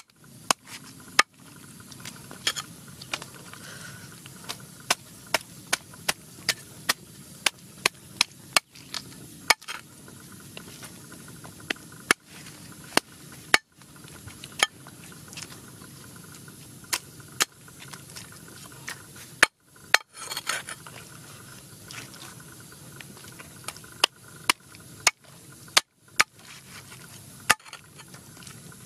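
A large cleaver chopping raw chicken into pieces on a chopping block: sharp, separate chops at an irregular pace, roughly one or two a second, with short pauses between runs.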